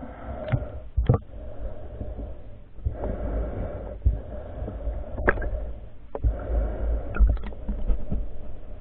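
Muffled underwater sound from a camera held below the surface, with the swimmer's slow breaths in long hushed stretches of about three seconds each. Under them runs a constant low rumble of moving water, and a few sharp clicks and knocks sound against the camera.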